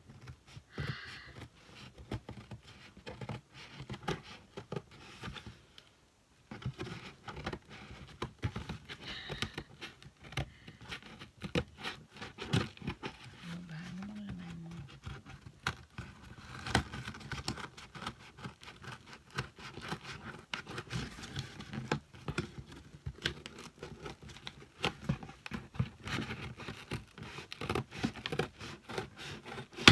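Scissors cutting and scraping along packing tape on a cardboard box: a steady stream of irregular scratches, clicks and crinkles from the tape and cardboard.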